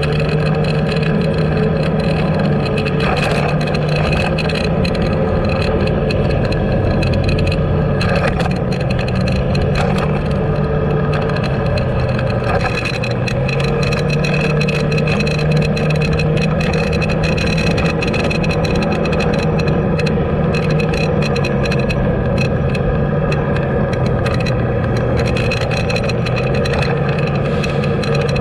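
A vehicle's engine running steadily while driving in traffic, its pitch drifting up and down a little with speed, over a constant rush of road noise.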